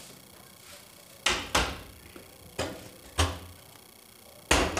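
Lower kitchen cabinet doors of MDF sheet being opened and shut by hand: about six sharp knocks and clacks, the loudest near the end.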